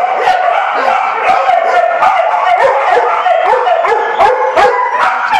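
Several dogs in shelter kennels barking at once, a loud continuous din of overlapping barks, several a second.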